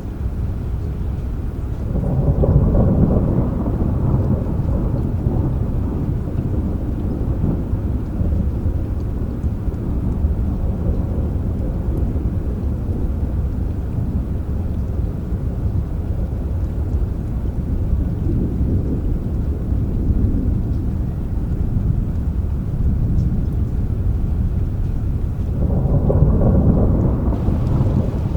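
Thunder rumbling low and continuous over steady rain, swelling louder about two seconds in and again near the end.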